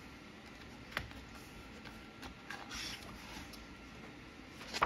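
Paper page of a hardcover picture book being turned by hand: a light tick about a second in, then soft rustling as the page is lifted and turned over.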